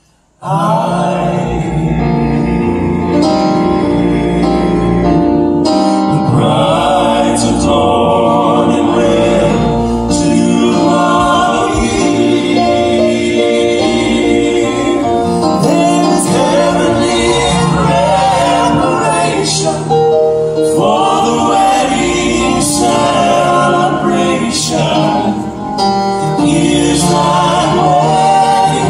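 Male gospel vocal quartet singing in close harmony with piano accompaniment, amplified through a PA. The music drops out for a moment at the very start, then comes back in.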